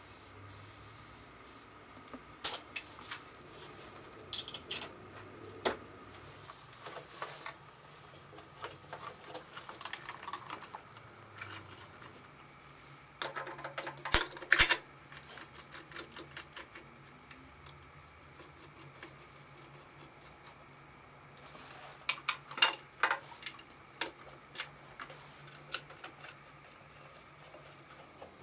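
Small parts of a vintage Vespa scooter being handled and fitted by hand, making scattered sharp clicks and knocks, with a dense run of rattling clicks about halfway through and another shorter run near the end.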